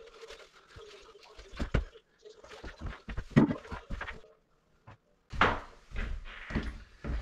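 Several sharp knocks and thumps in a small room: a pair about a second and a half in and a loud one past halfway. Near the end come repeated heavier thuds of footsteps on a tiled floor.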